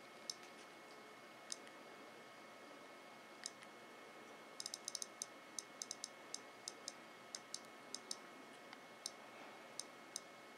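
Third-generation iPod nano's click wheel ticking as a thumb scrolls through a song list. A few single ticks come first, then a quick run of ticks about halfway through, then a slower run of about two ticks a second to the end, over a faint steady hiss.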